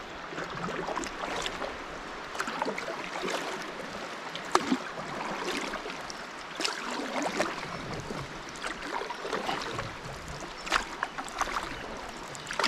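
Canoe paddling on a river: paddles dipping and splashing in the water at irregular intervals, with occasional light knocks, over a steady rush of moving water.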